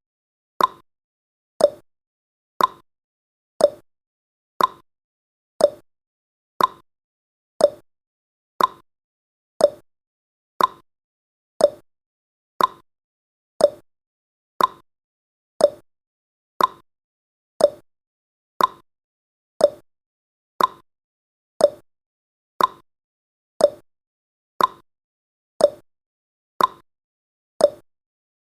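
Clock tick-tock sound effect: sharp clicks about once a second, alternating between a higher and a lower pitch.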